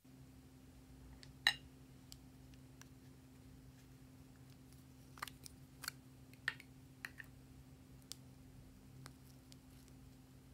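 Sharp plastic clicks of lipstick tubes being handled, their caps pulled off and the sticks twisted up, about a dozen clicks with the loudest near the start and a cluster in the middle. A steady low hum runs underneath.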